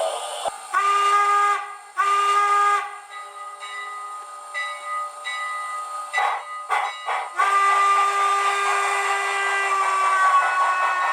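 Recorded steam locomotive whistle from a TCS WOW Sound model-railroad decoder. Two short toots, then a few short hisses, then one long blast whose pitch sags slightly near the end.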